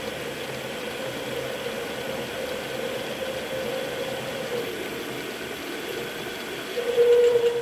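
Centre lathe running with a centre drill cutting into the end of the spinning workpiece, a steady machine hum with a steady tone. Near the end the tone comes back louder for about a second.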